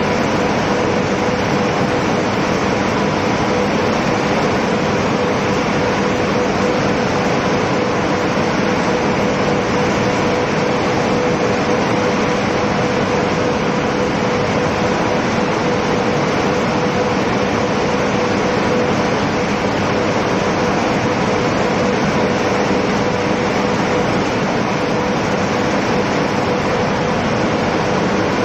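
Seed cleaning line running: a steady, loud machine drone with a constant hum, unchanging throughout.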